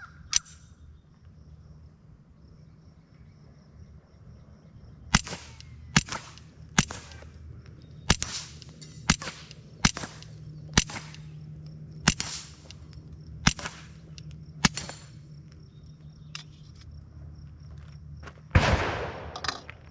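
Suppressed .22 LR pistol (Smith & Wesson Victory with a Dead Air Mask suppressor) firing subsonic rounds: about ten quiet, sharp cracks at an uneven pace of roughly one a second, each with the metallic clack of the bolt cycling. A louder noise about a second long follows near the end.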